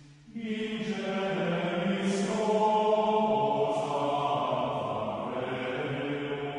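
Background music of voices chanting in plainchant style, with long held notes; after a brief pause at the start a new phrase begins.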